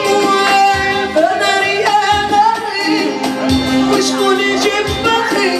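A woman singing a Moroccan popular song live into a handheld microphone, her voice gliding and held on long notes, over a steady percussion beat.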